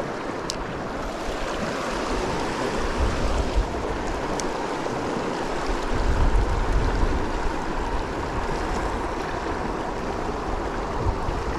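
Fast, turbulent creek water rushing steadily over a rough bed, with a low rumble joining from about halfway in and a couple of faint clicks.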